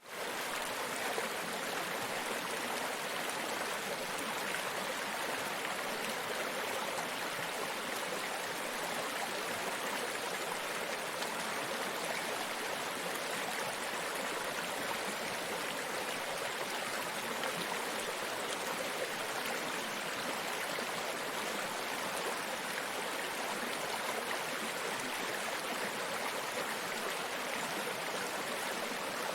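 A small brook babbling steadily over stones, an even rush of water with no pauses.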